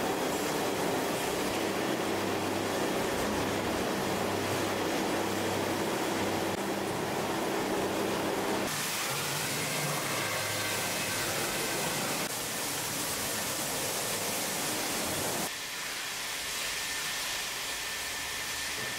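Steady mechanical hum and hiss of fish-processing machinery, a whole-fish grader and its conveyor running. The noise changes abruptly about halfway through and twice more.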